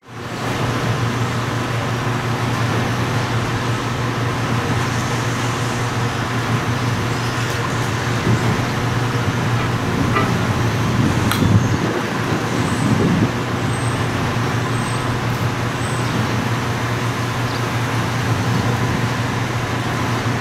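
Steady outdoor vehicle and traffic noise with a constant low hum, and a few short high peeps about two-thirds of the way through.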